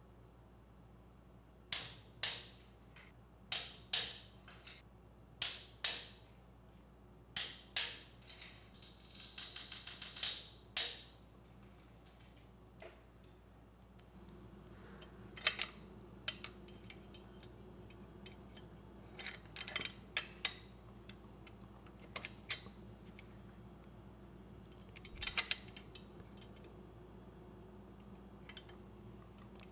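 Torque wrench clicking as the cylinder head bolts of a Briggs and Stratton generator engine reach 220 inch-pounds: sharp clicks in pairs about every second and a half, then a quick run of ratchet ticks about ten seconds in. Scattered lighter clicks follow in the second half.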